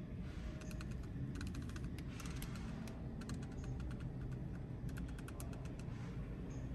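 Buttons and switches on a 2023 Genesis G90's interior controls being pressed, clicking in several quick runs of taps, over a steady low hum.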